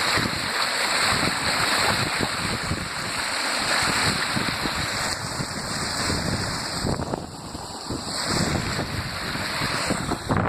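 Fast-flowing floodwater rushing in a steady wash of noise, with wind buffeting the phone's microphone; the rush eases briefly about seven seconds in.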